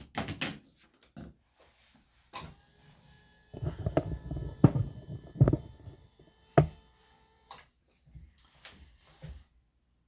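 Scattered snips and knocks: grooming scissors trimming the hair around a Schnauzer puppy's eyes, mixed with handling bumps, with a sharp knock about six and a half seconds in.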